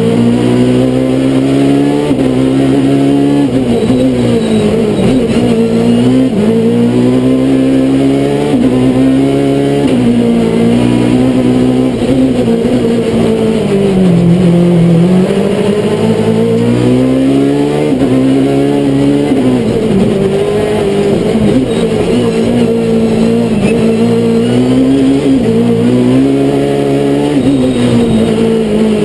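Citroën Xsara Kit Car's two-litre four-cylinder rally engine heard inside the cabin at racing pace, revs repeatedly climbing and falling through quick gear changes. About halfway through the revs sink lower and longer before climbing again.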